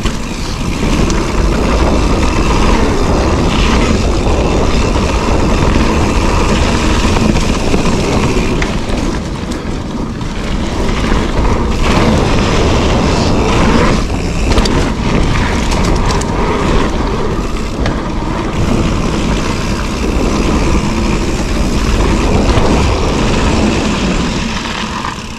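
Mountain bike descending a dirt trail: tyres rolling over the dirt and wind buffeting a microphone mounted on the handlebars, a loud continuous rush with scattered clicks and knocks from the bike. The noise eases off right at the end as the bike slows.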